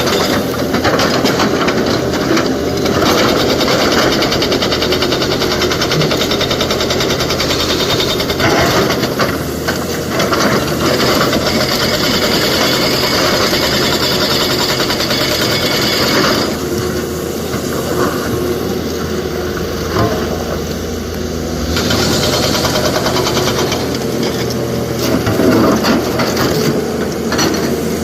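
A heavy diesel excavator running steadily under load as it digs and loads rock, with constant clattering and knocking of rock and steel.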